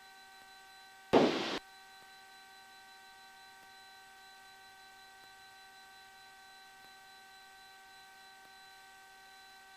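Steady electrical hum on the cockpit intercom audio line, several fixed tones held without change. About a second in, a short loud rushing burst of about half a second cuts across it.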